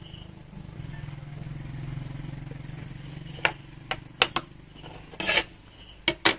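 A motorbike's engine hum swells and fades as it passes, over the first three seconds or so. Then a few sharp clicks and knocks, with a short scrape about five seconds in, as a wooden ruler and fabric are handled on a wooden tabletop.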